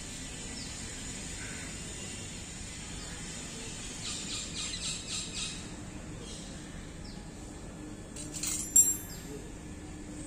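Metal-on-metal work on a bicycle's handlebar stem with hand tools: a short run of quick ticking rattles near the middle, then one sharp, ringing metallic clink about three-quarters of the way through. Faint bird chirps sound over a steady background hiss.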